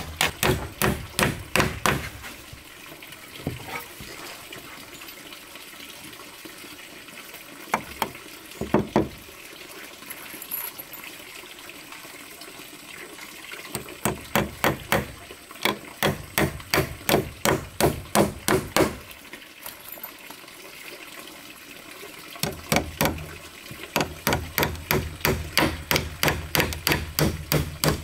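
Hammering on wood in runs of quick blows, about three or four a second, broken by pauses of several seconds. A steady faint wash of noise underneath.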